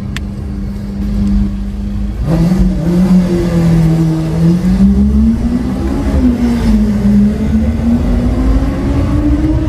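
Lamborghini Aventador SV Roadster's V12 with a Capristo exhaust holding a steady note, then accelerating hard about two seconds in. The pitch climbs steadily with a brief dip partway, like a gear change.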